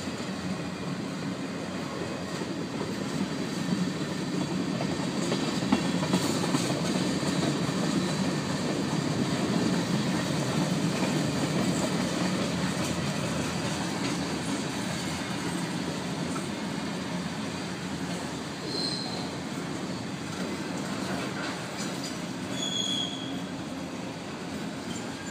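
Long CSX freight train of autorack and tank cars rolling past: a steady rumble and rattle of wheels on rail, loudest about ten seconds in, with a few sharp clicks around five seconds in and a couple of brief high squeaks later on.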